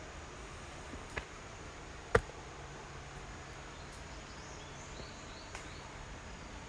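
Quiet woodland ambience: a steady low background with a few faint high chirps, broken by a single sharp knock about two seconds in.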